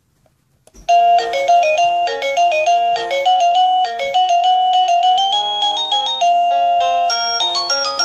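SadoTech wireless doorbell receiver playing its chime number 7: a quick melody of short notes that starts abruptly about a second in and plays on without a break.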